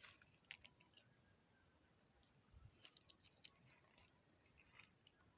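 Near silence with faint scattered clicks, a cluster near the start and another around the middle.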